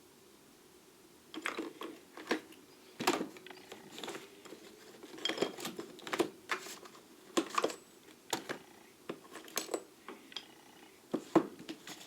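Small metal lathe tools clinking and clattering against each other as they are handled and moved around in a cluttered toolbox drawer. The irregular string of sharp clinks starts about a second and a half in.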